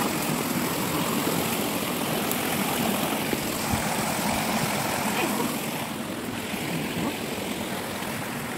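Steady rush of a waterfall and stream, easing a little after about six seconds.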